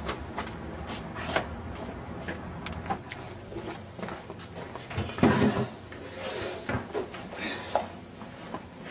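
A series of scattered clicks and knocks, like things being handled in a small room, with a louder knock about five seconds in followed by a brief hiss.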